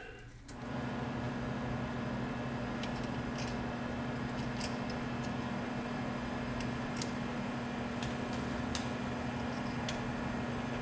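A steady machine hum like a running fan comes on about half a second in and holds, with a low steady tone in it. A few light clicks of small parts being handled sound over it.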